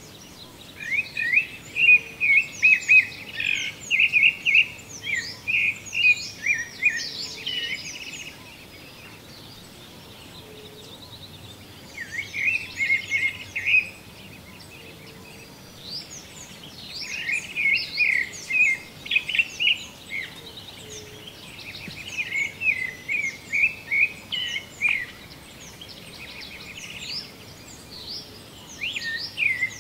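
Field recording of wild birds singing: bursts of quick chirping song phrases a few seconds long, with short lulls between them, over a faint steady background hiss.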